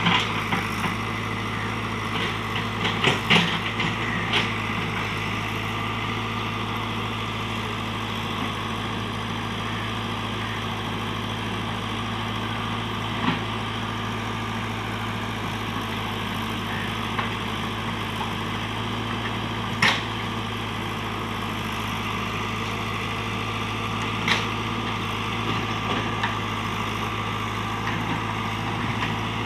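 JCB backhoe loader's diesel engine running steadily at low revs, with a few sharp knocks: several in the first few seconds, then single ones now and then.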